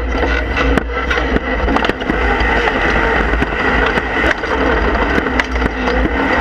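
Rock bouncer's engine running steadily under load on a rock climb, heard through an onboard camera, with many sharp knocks and clicks from the tyres and chassis on the rocks.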